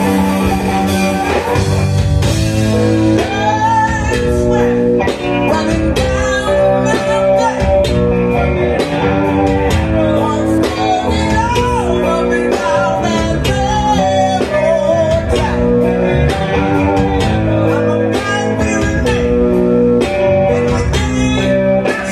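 Live rock band playing loud and steady: electric guitar over drums and keyboard, with a melodic line bending up and down in pitch over the top from a few seconds in.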